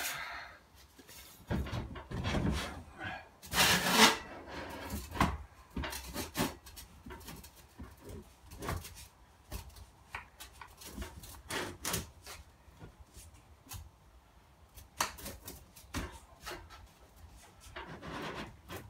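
Handling noises of a log burner's flue pipe sections being fitted and twisted together: scattered clicks, knocks and scraping of the parts, with the loudest scraping rub about four seconds in.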